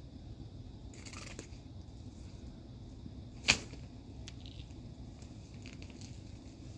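Light rustling of a nylon cat tunnel with a cat moving inside, and about halfway one sharp snap, much louder than the rest.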